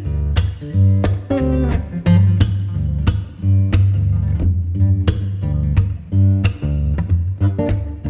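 Background music: acoustic guitar picking and strumming over a steady bass line.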